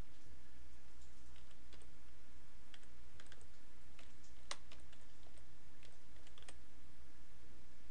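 Computer keyboard being typed slowly and unevenly, single key clicks a few per second, over a steady low hum.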